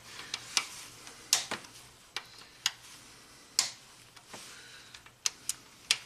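Irregular sharp metallic clicks and clinks of a hand tool on the camshaft bearing cap bolts as they are loosened, about a dozen scattered over a few seconds.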